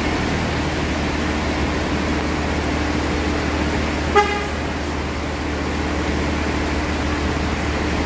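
A large diesel coach's engine idling steadily, with a noisy hiss of rain around it. About four seconds in, a horn gives a single short beep.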